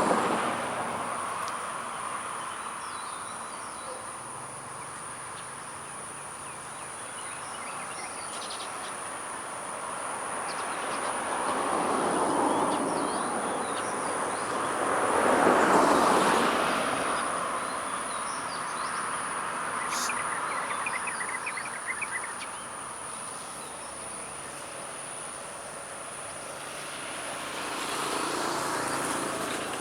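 Outdoor ambience: a steady, high-pitched insect drone under slow swells of rushing noise that rise and fall several times, loudest about halfway through. Faint bird chirps show up now and then.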